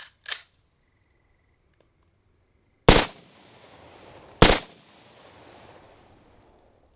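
Two short bursts of automatic rifle fire through a Dead Air Pyro muzzle brake, about a second and a half apart, each trailing off in a long echo.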